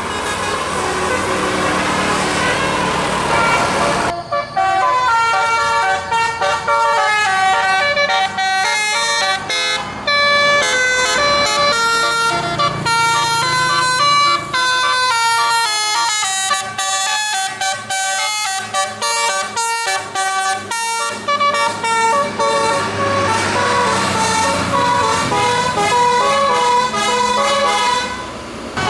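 A bus's multi-note musical air horn, the telolet, plays a tune of short stepped notes for about 24 seconds. It starts about four seconds in, after a stretch of vehicle noise with no notes in it.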